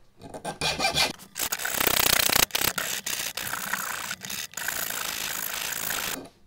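Hand file rasping across the end of an M3 stainless steel threaded rod in a run of back-and-forth strokes with short breaks between them, filing a cone onto the rod's tip. The filing stops a little after six seconds in.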